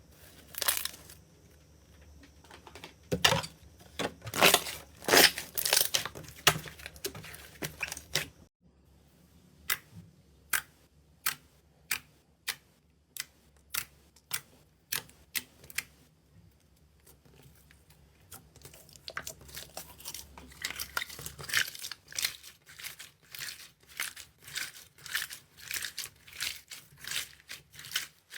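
Slime being worked by hand, crackling and popping in close-up. Dense crackles for the first eight seconds or so, then a regular series of single pops, about three every two seconds, then dense crackling again for the last third.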